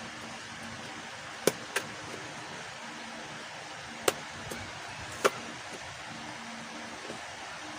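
Sharp, isolated clicks and taps of cube packaging being handled and opened by hand, four in all, over a steady background hiss and faint hum.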